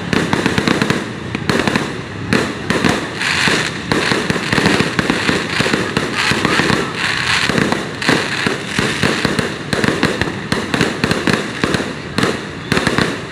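Many firecrackers and fireworks going off at once, a dense, unbroken run of sharp bangs and pops, several a second, overlapping one another.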